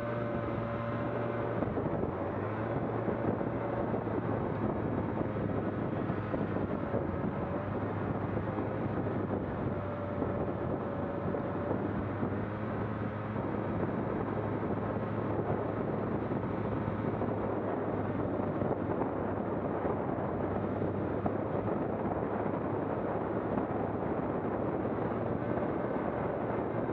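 A vehicle's engine running steadily at constant speed, with a low drone and a rushing wind noise on the microphone throughout.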